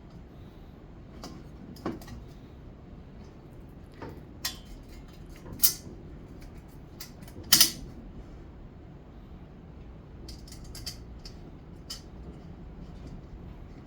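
Scattered sharp clinks and knocks of the screw, handle parts and tools against a non-stick frying pan as its handle is being fitted. The loudest is a quick double knock a little past halfway, with a run of lighter clicks near the end.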